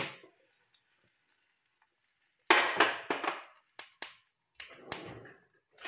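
Tempering spices frying in hot oil and ghee in a steel kadai, sizzling faintly, then cumin seeds tipped in about two and a half seconds in set off a brief burst of louder sizzling and crackling, followed by a few small pops.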